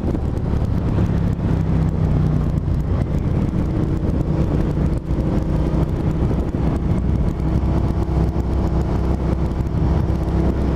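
Suzuki SV650S 645 cc V-twin motorcycle engine running while riding, its pitch shifting a little with the throttle.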